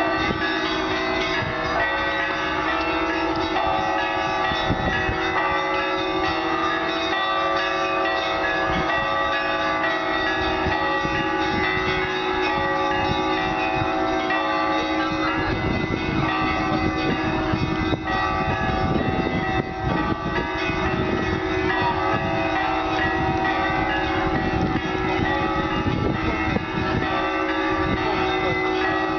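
Russian Orthodox cathedral bells being rung together, many bells of different pitches overlapping in one dense, continuous ringing.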